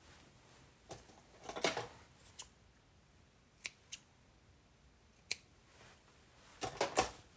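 Scissors snipping baker's twine, trimming the ends of a tied bow: a few separate short, sharp snips spread through, the loudest pair near the end.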